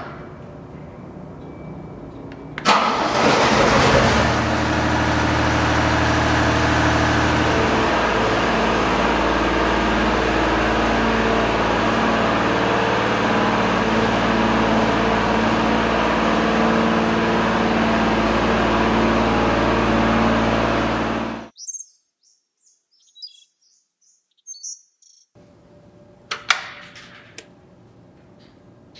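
Diesel engine of a rough-terrain scissor lift starting about three seconds in, then running loud and steady. It cuts off abruptly a few seconds before the end, leaving only a faint hum with a few clicks.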